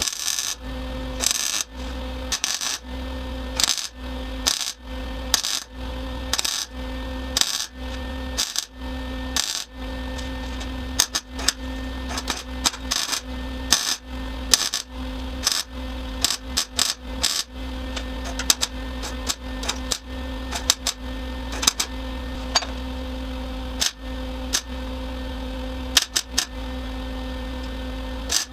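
Steady electrical hum broken by many sharp clicks: roughly one a second for the first ten seconds, then quicker and irregular.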